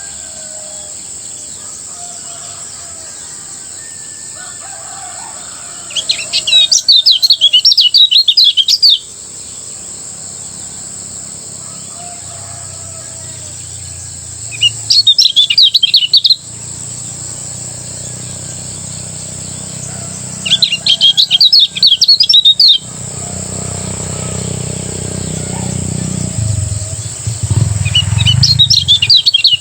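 Kecial kuning, a Lombok white-eye, singing its fast chattering 'ngejos' song in four bursts of two to three seconds each, with pauses between.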